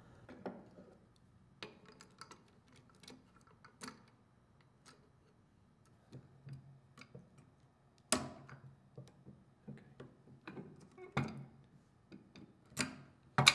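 Light metallic clicks and ticks of needle-nose pliers working the thin waggle arm wire onto the metal waggle arm bracket of a liquid level controller. The clicks come irregularly, with a few sharper ones in the second half.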